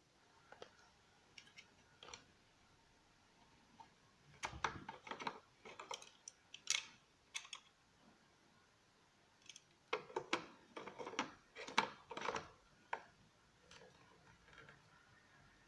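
Handling noises: light clicks and knocks of plastic and metal parts being picked up and set down, in two flurries about four and ten seconds in.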